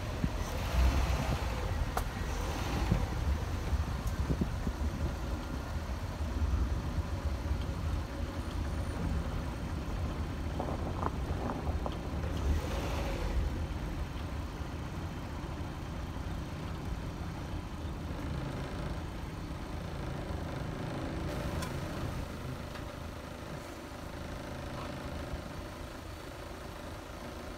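Modified Dodge Neon driving slowly over a rough dirt trail: a steady low engine and road rumble, with sharp knocks and rattles over bumps that come most in the first few seconds, then smoother and quieter running.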